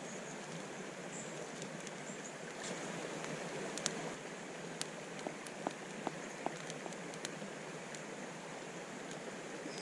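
Wooden spoon stirring in a wooden cup, knocking against its side several times in quick succession a little past the middle, with a few sharp clicks before it. Under it runs a steady rushing hiss.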